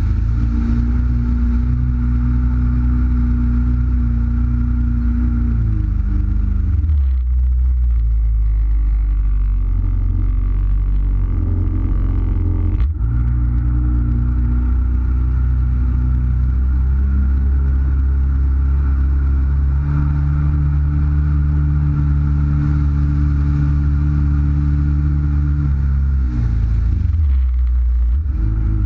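Jet ski engine running steadily, its pitch dropping as the throttle eases about six seconds in, rising again near the middle, stepping up further later and easing off near the end. A single brief click about thirteen seconds in.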